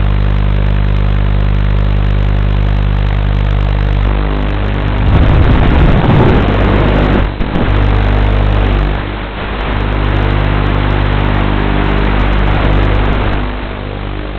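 FPV drone's motors and propellers heard through its onboard camera microphone, recorded on the goggles' DVR, with a throttle surge about five seconds in.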